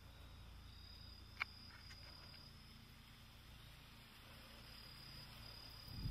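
Crickets trilling faintly in high, steady tones that stop and resume, over a low hum. One sharp click sounds about a second and a half in.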